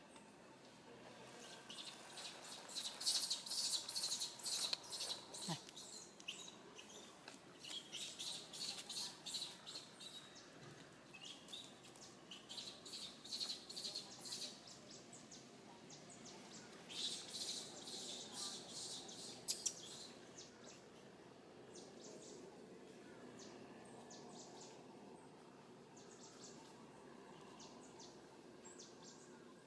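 Birds chirping in quick runs of sharp, high notes, several bursts over the first two-thirds and fainter after, over a faint outdoor background hiss.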